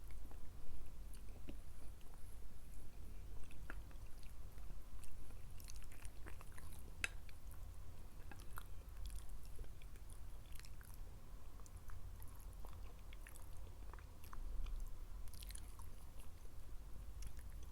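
A person chewing food close to the microphone, with irregular wet clicks and small crunches, over a steady low hum.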